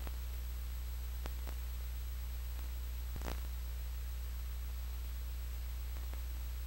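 Steady low electrical hum with hiss and no other soundtrack, broken by a few faint clicks, the clearest a short crackle a little after three seconds in.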